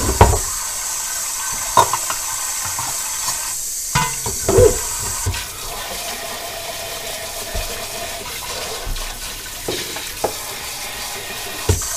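Kitchen tap running into a stainless steel sink while a pot and a small metal cup are scrubbed under it. Several short clinks and knocks of metal on metal come in the first five seconds, and the water's hiss eases a little after about five seconds.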